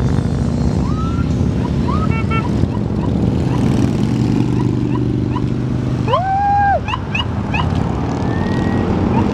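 Steady low rumble of passing motorcycles and police escort vehicles, with a police siren giving short rising chirps and one longer whoop about six seconds in.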